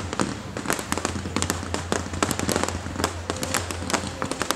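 Fireworks going off in a dense run of sharp crackling pops, several each second, over a steady low rumble.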